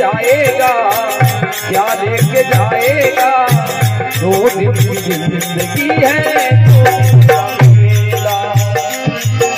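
Marwari devotional bhajan music played live: a harmonium melody over a steady drum beat, with jingling percussion keeping time.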